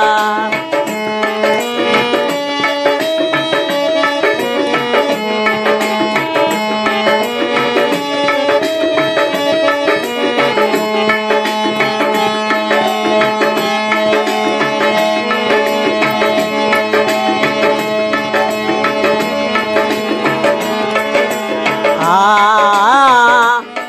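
Instrumental interlude of a Rajasthani devotional chhavali song: a dholak hand drum plays a steady rhythm with manjira hand cymbals, under a melody of held notes that step from pitch to pitch. A singer's voice comes in with a wavering line near the end.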